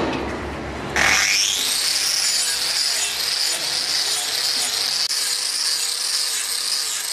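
An electric angle grinder with a hoof-trimming disc starts up about a second in. Its whine rises quickly to a steady high pitch, with a rough grinding hiss as the disc works the horn of a cow's hoof.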